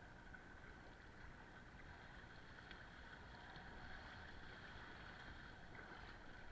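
Faint, steady wind-and-water noise out on open water from a small boat, with a few light ticks.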